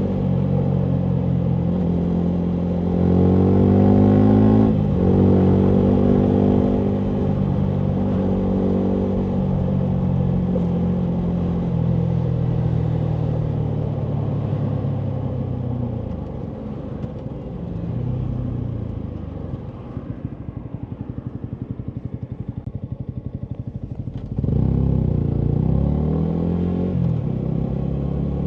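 Yamaha MT125's single-cylinder four-stroke engine through a full Akrapovic exhaust. It revs up with a quick gear change about five seconds in, then the revs fall away slowly as the bike slows. It settles to a quieter low-rev putter for several seconds and revs up again near the end.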